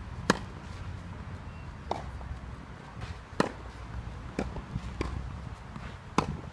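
Tennis ball being struck by rackets in a baseline rally on a clay court: sharp pops, the three loudest about three seconds apart, with fainter hits and ball bounces between them.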